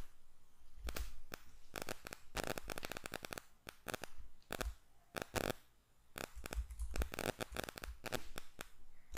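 Computer keyboard being typed on: keys clicking in quick runs, with single separate clicks between them.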